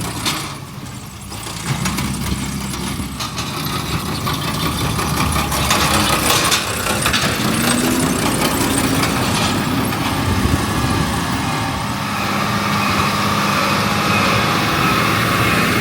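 Diesel engine of farm machinery working a straw field, running steadily, with a brief rise in pitch about seven seconds in.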